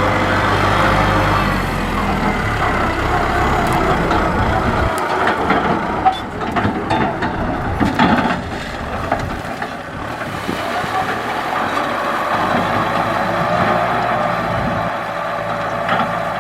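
Kubota M6040SU tractor's diesel engine running steadily while ploughing, with a few clanks and knocks from the machinery about halfway through.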